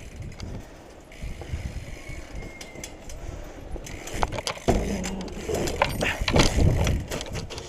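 BMX bike tyres rolling over paving stones, then a loud knock a little past halfway as the bike hops onto a wooden park bench, followed by rattling and a heavy landing thud as it drops off with a 180.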